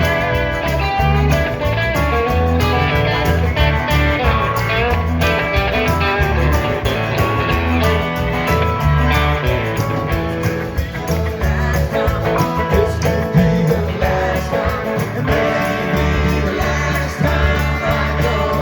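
Live rock band playing: electric guitars over bass guitar and drums, loud and steady.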